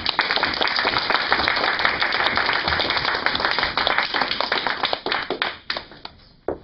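Small audience applauding, with one person clapping close by; the applause thins out after about five seconds and stops, with a last single clap near the end.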